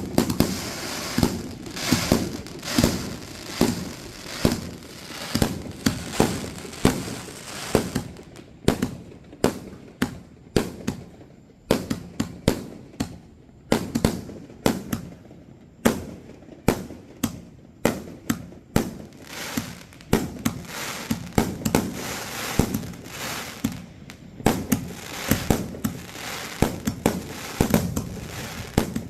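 Fireworks show: a rapid string of aerial shell bangs, about one or two a second, over a crackling haze that fades about a third of the way through and returns near the end.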